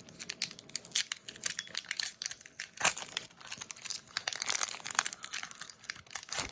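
Foil wrapper of a Pokémon trading card booster pack crinkling as it is handled and opened: a dense run of irregular sharp crackles.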